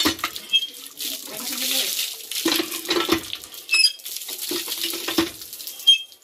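Water gushing from the spout of a cast-iron hand-pump tubewell onto a concrete platform. The handle is worked in strokes about every two seconds, each one bringing a surge, with a couple of sharp metallic clinks. The pump is drawing water again after its check valve was replaced and it was primed.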